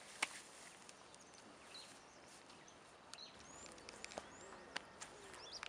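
Faint outdoor ambience: a steady low hiss with small birds giving short high chirps now and then, and a few soft clicks.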